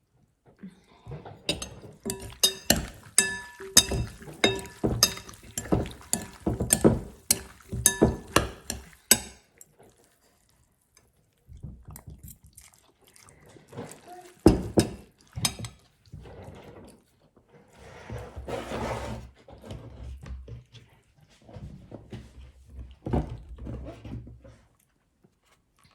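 Spoon or utensils clinking rapidly against a ringing bowl for several seconds, as when tossing a salad. A pause follows, then a single loud knock and scattered softer kitchen clatter.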